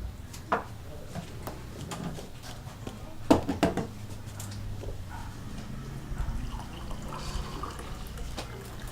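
Coffee being shaken in a container, with liquid sloshing and a few sharp knocks; the loudest knocks come a little over three seconds in. A low steady hum runs underneath.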